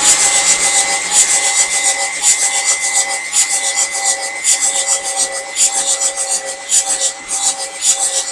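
Starter motor cranking a 6.9-litre IDI diesel V8 with its glow plugs removed: a steady whine under an unevenly pulsing hiss, the engine turning over without catching because the fuel system has not yet been bled.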